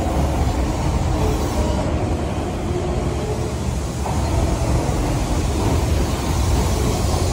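Izukyu 2100 series Royal Express carriages rolling slowly past as the train departs: a steady low rumble with no clear wheel clicks.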